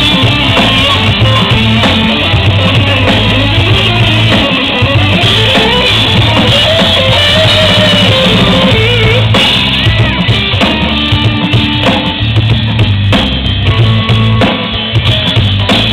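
Live band playing amplified pop-rock, with a drum kit keeping a steady beat under bass and electric guitar.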